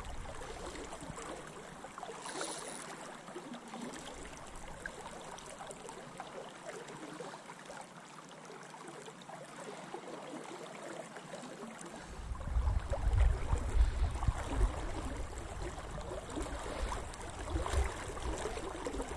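A river in spate rushing steadily around a wading angler. About twelve seconds in, low rumbling buffets on the microphone set in and become the loudest sound.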